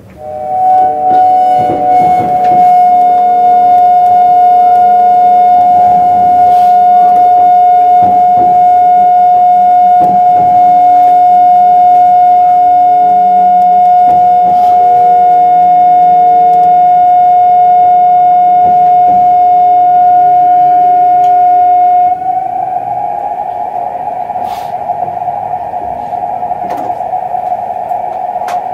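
Kintetsu 21020-series Urban Liner Next traction motors whining as the train slowly decelerates. A loud, steady high tone holds over lower tones that slowly fall in pitch. About 22 seconds in, the tone suddenly turns into a rougher, quieter buzz.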